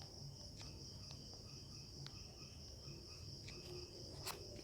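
Faint, steady high-pitched chirring of crickets, with a few light clicks scattered through.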